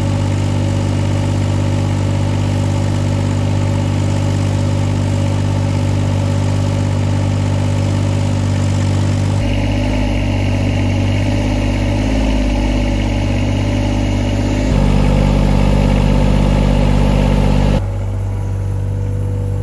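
Hitachi ZX26 mini excavator's diesel engine running steadily, its tone changing in steps about halfway through, then getting louder for about three seconds before dropping back near the end.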